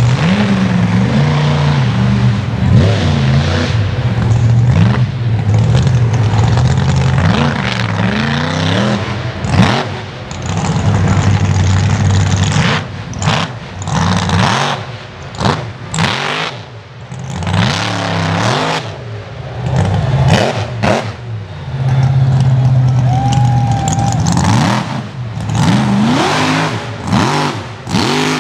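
Monster truck engine revving hard under load, its pitch repeatedly climbing and falling, with the sound dropping off sharply several times before it revs back up.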